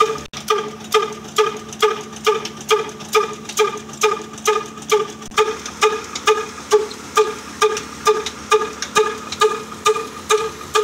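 Old stationary single-cylinder horizontal diesel engine with a heavy flywheel, running slowly and steadily as a flour-mill engine, with a sharp, even exhaust beat a little over twice a second.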